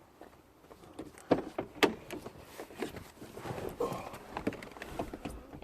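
Irregular knocks and clunks of salvaged scrap being carried and handled, starting about a second in, ending in one loud thump.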